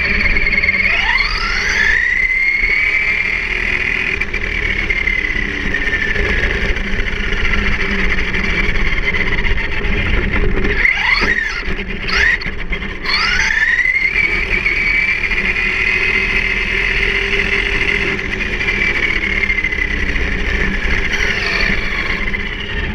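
Traxxas Rustler VXL's brushless electric motor and drivetrain whining as the RC truck drives at speed, over a steady rumble of tyres on asphalt. The whine rises sharply in pitch about a second in, then falls slowly as the truck coasts; there is a burst of quick on-off throttle just past halfway, then another sharp rise and a long slow fall.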